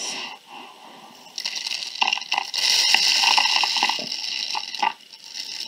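Dry rice grains pouring from a glass measuring cup into a cardboard paper towel tube lined with aluminium foil spirals, making a steady hiss with fine crackle. It starts about a second and a half in and fades out near the end.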